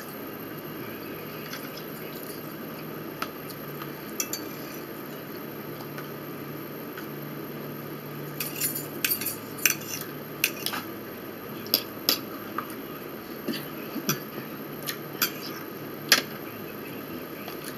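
Metal fork clicking and scraping in a plastic food tray and on a plate: a few single clicks, then from about eight seconds in a busy run of sharp clinks.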